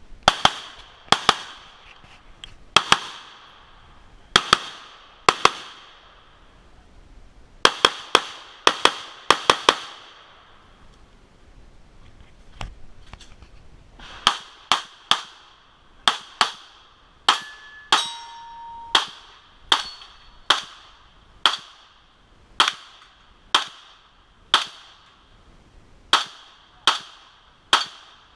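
Gun firing repeatedly, about thirty sharp reports, some single and some in quick runs of two or three, each with a short ringing tail.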